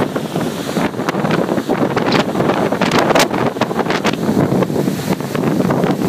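Strong wind blowing straight across the microphone: loud, gusting buffeting with rapid crackles.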